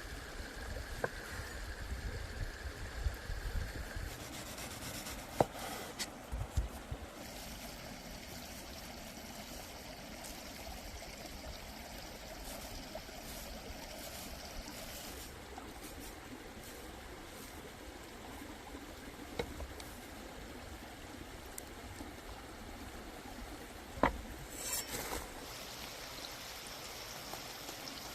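Steady watery trickling, with a few sharp clicks scattered through it and a louder knock near the end.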